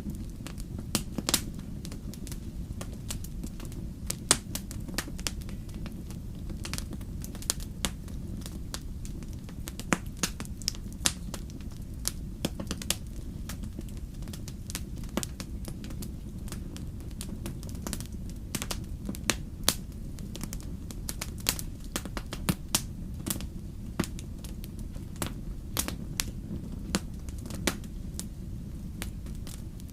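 Wood fire in a fireplace crackling: irregular sharp pops and snaps, several a second, over a steady low rumble.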